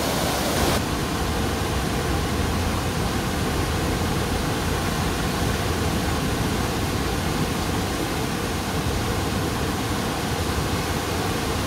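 Rushing water of a waterfall, a steady even hiss that turns slightly duller about a second in.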